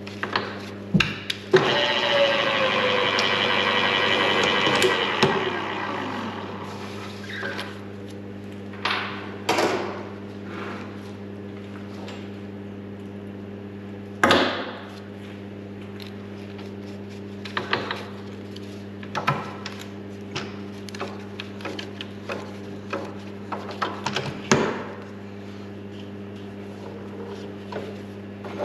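Machine-shop sounds over a steady hum: a motor runs loudly for a few seconds and then winds down, falling in pitch. After it come scattered knocks and clinks of metal tools and parts being handled.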